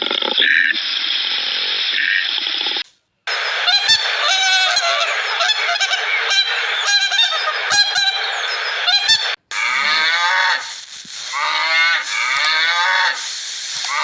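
Repeated pitched animal calls in three clips joined by two abrupt cuts, about three seconds and nine and a half seconds in.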